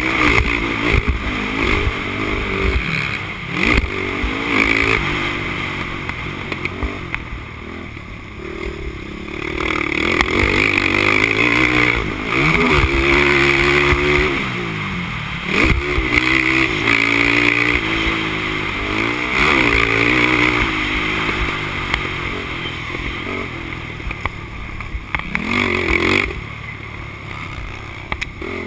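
Honda TRX450R quad's single-cylinder four-stroke engine under racing throttle, revving up and falling away again and again as it is ridden hard and eased off, with a few sharp knocks.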